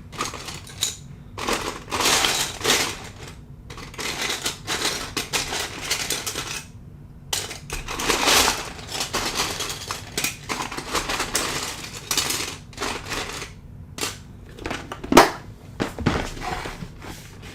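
Loose plastic Lego pieces clattering and rattling as a hand rummages through a pile of them, in bursts with short pauses, with one sharper knock about fifteen seconds in.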